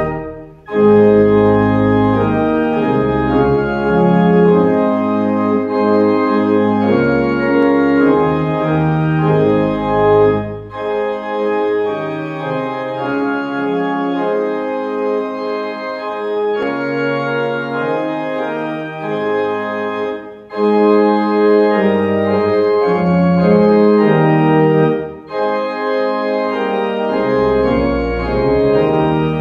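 Church organ playing a hymn in full chords with a pedal bass line that drops out in some phrases, breaking off briefly between the lines of the tune.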